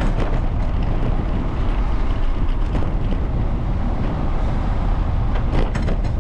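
Wind buffeting the microphone of a camera riding along on a moving bicycle: a steady low rumble that holds without letting up.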